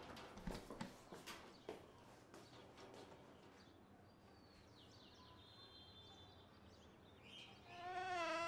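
A few faint knocks and clicks in the first seconds, then faint bird chirps. Near the end a cat starts a long, wavering meow.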